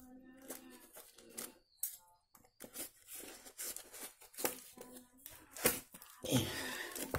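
A paper-and-tape-wrapped parcel being handled and turned over: scattered rustles, crinkles and light taps of the packaging, with a louder, longer rustle about six seconds in.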